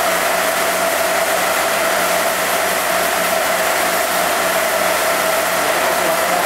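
TOS FS 100 CNC table milling machine running, a steady mechanical whir with a constant mid-pitched hum.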